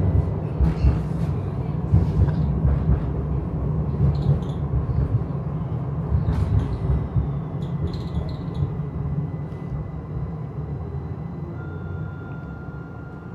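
Passenger-cabin running noise of a Pesa Twist 147N low-floor tram: a steady low rumble of wheels on rail with scattered knocks and rattles, growing quieter toward the end.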